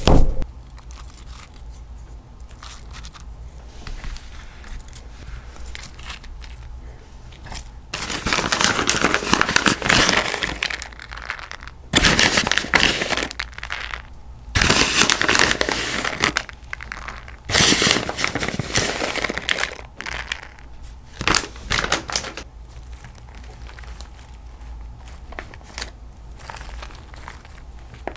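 Crinkling and rustling while fish tacos are put together by hand with shredded cheddar and lettuce, coming in about five bursts of one to three seconds each through the middle of the stretch, with quiet between.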